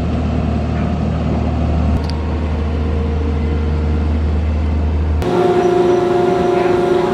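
Mobile boat hoist (travel lift) running as it drives in over a catamaran: a steady low engine rumble. About five seconds in it changes abruptly to a steadier whine of several held tones.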